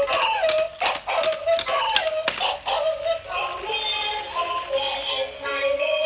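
Battery-powered dancing dog toy playing its built-in electronic tune, one wavering melody line, with scattered sharp clicks from the toy as it moves.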